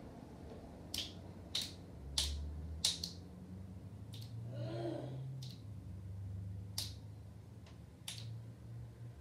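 A child snapping her fingers: about eight short, sharp snaps at uneven intervals, roughly every half second to second and a half. There is a brief faint hum of her voice about halfway through.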